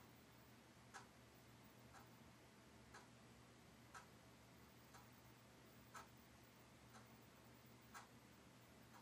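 Near silence with faint, regular ticking, about one tick a second; a few of the ticks are louder than the rest.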